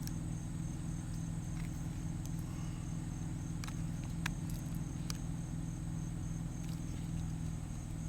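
Steady high pulsing chirr of crickets over a low steady hum, with a few faint light clicks of a plastic keypad being pried off a door.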